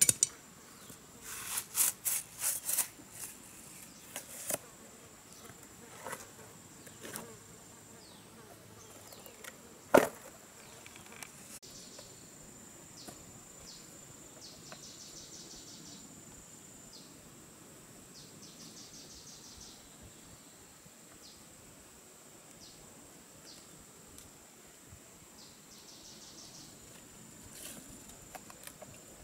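A machete strikes and scrapes a log a handful of times in the first few seconds, with one sharp knock about ten seconds in. After that, a steady high-pitched insect drone with repeated bursts of rapid chirping, and occasional faint knocks of bark pieces being laid on bamboo poles.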